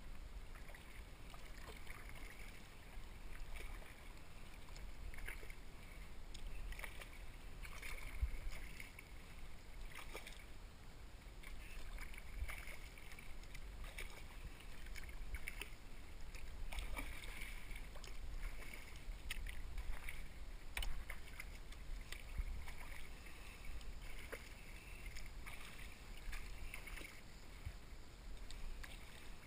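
Double-bladed kayak paddle dipping and pulling through calm river water, with irregular drips and small splashes over a low rumble, picked up by a camera mounted on the kayak.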